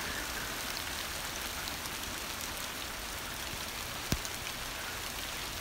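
Heavy rain of large drops falling steadily as an even hiss, with a single short tap about four seconds in.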